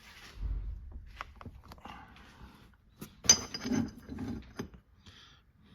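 Metal tow bar parts clinking and knocking as they are handled and fitted together, with one sharp, ringing metallic clink about three seconds in.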